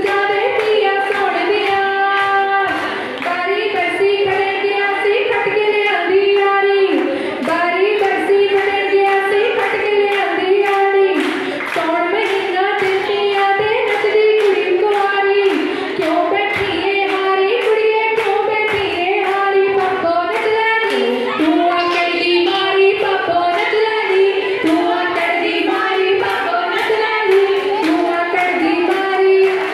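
Women singing a folk song through a microphone, a lead female voice carrying the tune, with steady rhythmic hand clapping at about two claps a second.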